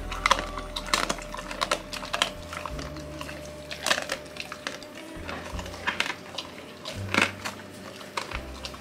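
Saint Bernard eating from a stainless steel bowl: irregular crunching and clicks of its mouth against the metal bowl, over soft background music.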